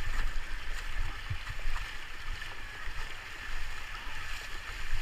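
Rushing river water heard from a raft, a steady hiss of flowing whitewater, over a low rumble with a few dull thuds.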